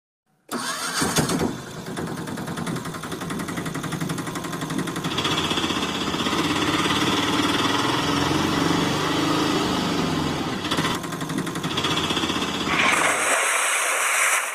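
A small engine running steadily, an engine sound laid over toy vehicles. It starts about half a second in, and its pitch rises and falls slowly around the middle. Near the end it gives way to a bright hissing noise with no engine underneath.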